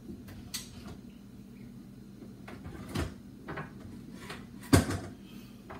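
Things being shifted and knocked about inside a lower kitchen cabinet: a few scattered knocks and clunks, the loudest about three-quarters of the way through.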